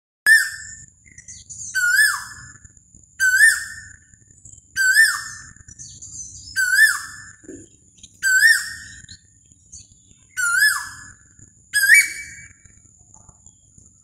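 Asian koel calling: a loud whistled note repeated about every second and a half, eight times, each rising and then dropping. A faint steady high whine runs behind the calls.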